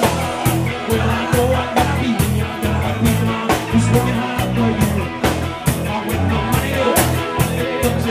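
Live rock band playing loud with a steady, driving beat and electric guitar, a singer on a handheld microphone.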